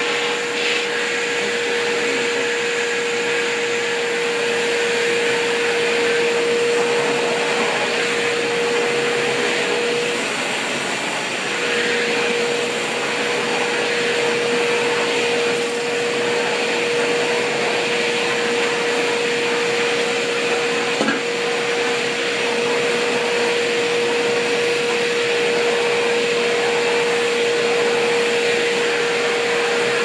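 Kärcher KNT 4 wet/dry shop vacuum running steadily, its floor nozzle being pushed over a shag rug: a continuous rushing noise with a steady whine. The whine wavers and the level dips slightly about ten seconds in.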